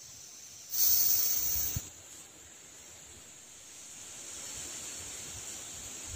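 Steady high-pitched drone of rainforest insects, with a loud hiss lasting about a second near the start.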